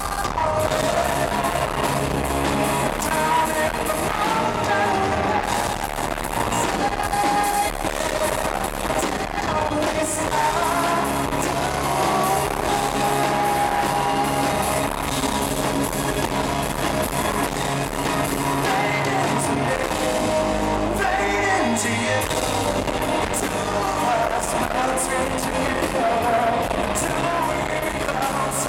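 Live pop-rock band playing: a male lead vocal sings over strummed acoustic guitar, electric guitar and drums.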